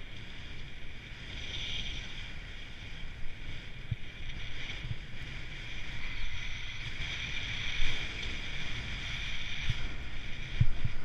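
Skis sliding and carving on snow, a steady hiss over the low rumble of wind on the camera's microphone, with a few dull thumps as the skis hit bumps.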